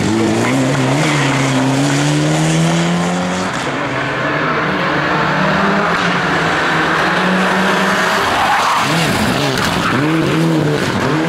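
Mitsubishi Lancer Evolution rally car's turbocharged four-cylinder engine revving hard at speed, with tyres skidding on tarmac. The engine note climbs steadily, breaks off suddenly about three and a half seconds in, and near the end rises and falls in quick blips.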